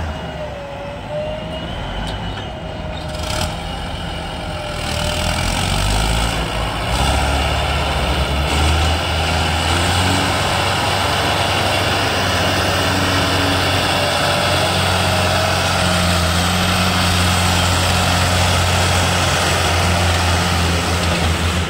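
Mahindra Arjun 555 tractor's diesel engine running under load while pulling a trolley full of soil, getting louder about six seconds in and then running steadily.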